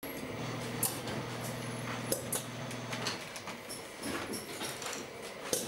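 Brush-workshop bench machinery: a steady low machine hum that stops about three seconds in, with scattered sharp clicks and knocks from work at the presses.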